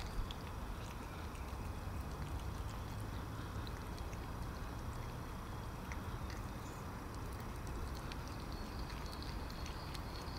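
A cat eating wet cat food from a plastic tub, with faint, irregular wet smacking and clicking from its chewing and licking. A steady low rumble runs underneath.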